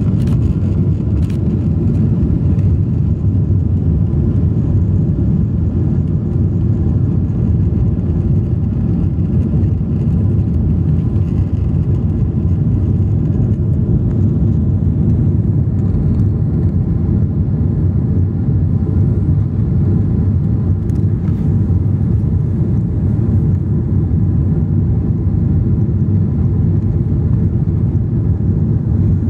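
Steady low rumble of a Boeing 777-200's twin jet engines and the rushing air, heard inside the passenger cabin during the climb after takeoff.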